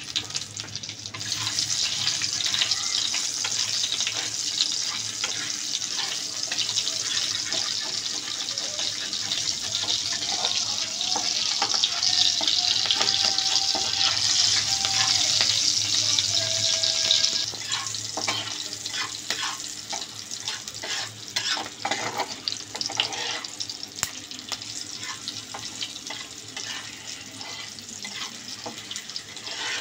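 Green chillies and panch phoron sizzling in hot oil in a kadai, a dense hiss that is loudest for the first half and eases off after about 17 seconds. A spatula scrapes and taps against the pan as the chillies are stirred, clicks most noticeable in the second half.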